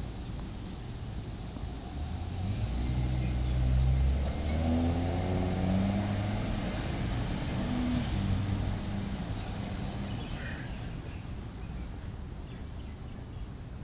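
A shuttle bus engine pulling away, rising in pitch as it speeds up, loudest about four seconds in and again near eight seconds, then dying away. Steady outdoor hiss lies underneath.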